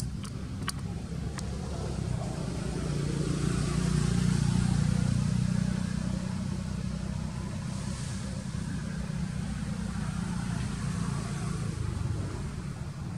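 Low, steady rumble of a motor vehicle's engine, growing louder about three seconds in and easing off again after about six seconds.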